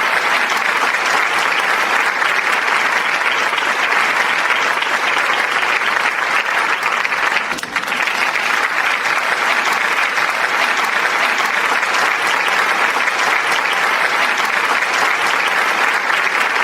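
Dense, steady applause from a large crowd clapping, with a brief dip in loudness about halfway through.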